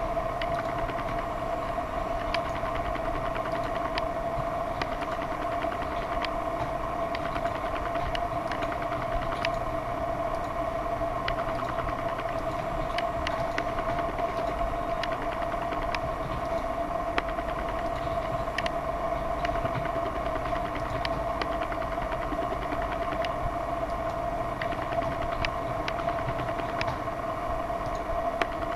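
A steady machine hum with a constant high whine, with light clicks scattered irregularly throughout.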